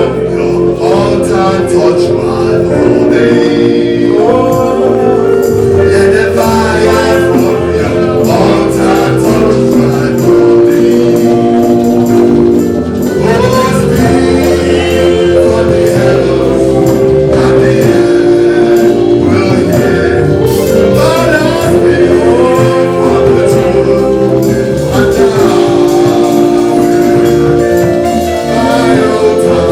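Live gospel worship music: voices singing over sustained, held chords, steady throughout.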